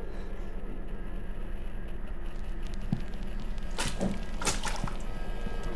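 Wet squelching over a steady low hum, loudest in two short bursts about four seconds in, as of blood and flesh around a nail driven through a hand.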